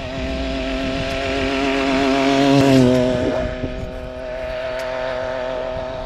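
100cc two-stroke motorised-bicycle engine running at speed as the bike rides past. It grows louder to a peak about three seconds in, where its pitch drops slightly as it passes, then carries on at a lower level.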